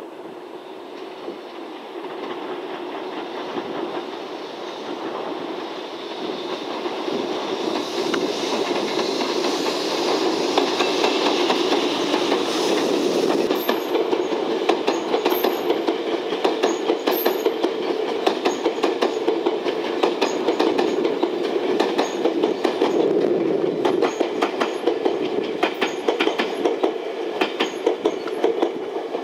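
JR Freight EF210 electric locomotive hauling unpowered Tobu N100 Spacia X cars past: a rumble that grows louder as the train draws near. From about halfway, a steady clickety-clack of the cars' wheels over the rail joints as they roll by.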